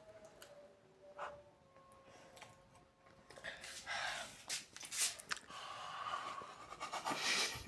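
A few faint clicks, then from about three seconds in a run of breathy puffs and hisses from a person over the hot home-made ginger cough drink.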